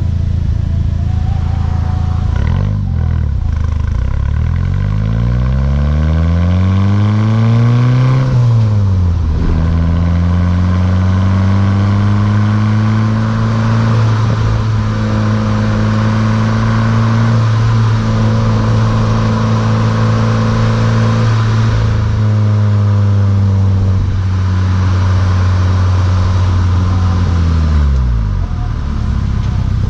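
Volkswagen Mk6 GTI's turbocharged 2.0-litre four-cylinder through a Beluga aftermarket exhaust, revs climbing for several seconds, dropping sharply at a gear change, then holding steady at cruise. The note falls away as the revs drop near the end.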